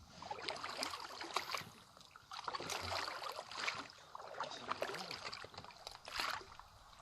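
Wooden boat paddles dipping and pulling through pond water in repeated strokes, each a splashy swish of about two seconds with short pauses between.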